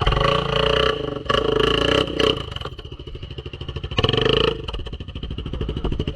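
ATV engine running with throttle bursts: a long rev for the first couple of seconds and a short one about four seconds in, dropping back to a lumpy idle between.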